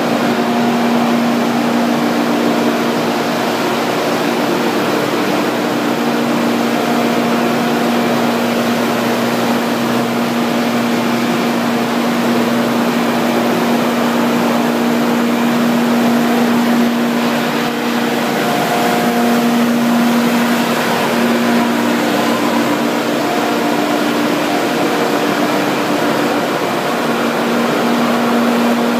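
Plastic film washing and recycling line running: electric motors, washers and blowers make a loud, steady hum over a constant mechanical rush.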